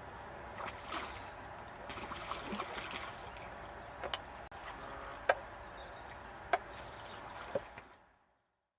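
Hooked carp splashing and thrashing at the water's surface close to the bank, busiest in the first few seconds. Four sharp clicks follow, about one a second, and the sound cuts off abruptly near the end.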